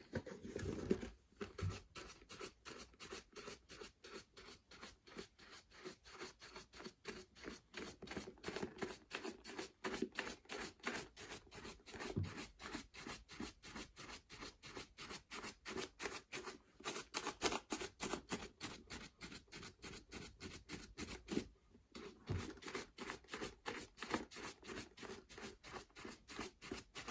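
Shoe brush rapidly brushing a leather boot, about three or four even scratchy strokes a second, with a short pause about 21 seconds in. The brush is buffing off freshly applied shoe cream to raise a shine.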